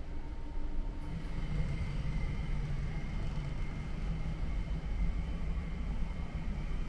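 Steady low hum of a building's ventilation and air conditioning. It gets slightly fuller about a second in and then holds even.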